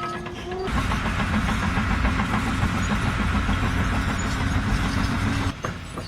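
An engine running steadily and fairly loud, starting a little under a second in and cutting off abruptly near the end.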